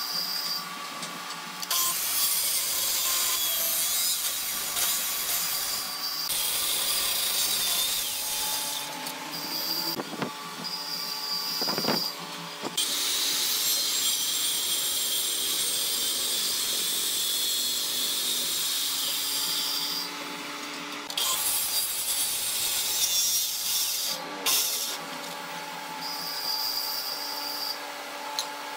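Handheld Makita circular saw cutting into a thick hardwood slab in repeated passes. The loud cutting noise comes and goes, with the motor running free on a steady tone in between, and two sharp knocks about ten and twelve seconds in.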